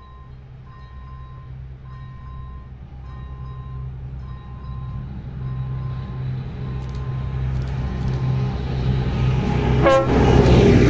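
A CZ LOKO diesel locomotive running light approaches and passes close by. Its engine drone grows steadily louder to its loudest as it goes past near the end, with a short horn toot about ten seconds in. An electronic level-crossing warning bell dings a little more than once a second and fades out around the middle.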